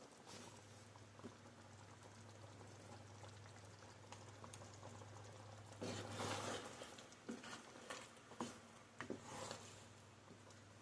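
Faint cooking sounds at the pot: a low steady hum under a soft liquid haze, a brief noisy rush about six seconds in, then a few light clicks and knocks of utensils.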